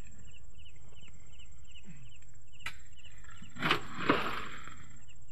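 A heavy sack of soil heaved into a pickup truck bed: a rustling scrape about three and a half seconds in, ending in a sharp thud about four seconds in, with a single sharp knock shortly before. Insects chirp in a steady pulsing rhythm throughout.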